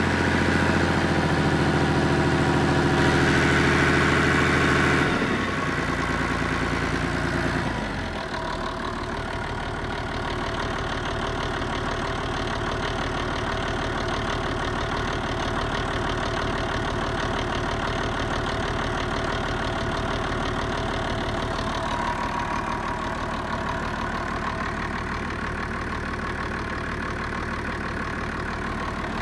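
Perkins Sabre M215 six-cylinder turbocharged marine diesel running, faster for the first few seconds, its note dropping and quietening about five and eight seconds in, then idling steadily.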